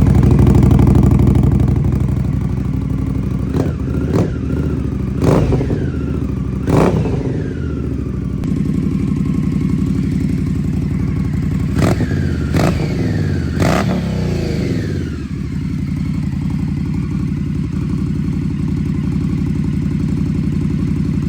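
Indian Scout V-twin engine idling through Bassani slip-on exhausts, blipped seven times: each quick rev rises and falls back to idle. Four blips come in the first seven seconds and three more around twelve to fourteen seconds in, with steady idle after.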